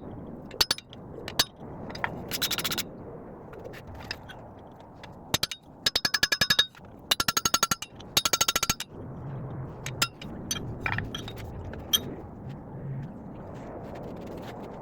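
Hammer striking hot steel on an anvil in quick runs of ringing blows, with single taps between them, while a steel bar is forged by hand.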